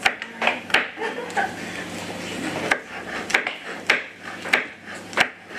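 Kitchen knife slicing a red chilli on a plastic chopping board: a series of sharp taps as the blade comes down through the chilli onto the board, at an uneven pace of roughly one to two cuts a second.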